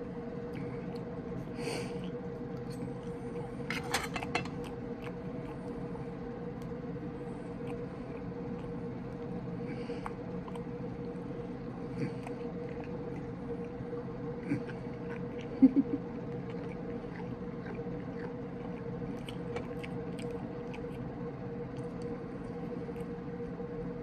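A steady low hum carrying one constant tone, with a few scattered small clicks and taps; the loudest two come close together about two-thirds of the way through.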